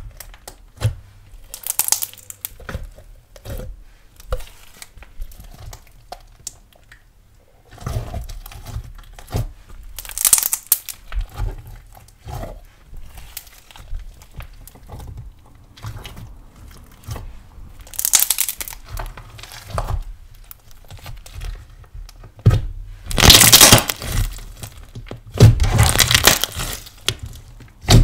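Pearl slime being stretched, poked and folded by hand, giving sticky crackling and popping with no voice. Louder bursts of crackling come now and then, the loudest near the end as both hands press and fold it.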